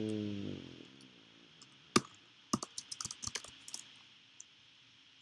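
Typing on a computer keyboard: one sharp key click about two seconds in, then a quick run of key clicks lasting about a second and a half, and one more light click near the end.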